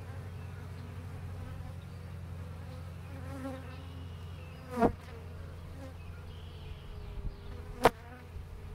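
Honey bees buzzing steadily around an open hive and a comb frame held up over it. Two brief, sharp, louder sounds come close to the microphone about five and eight seconds in.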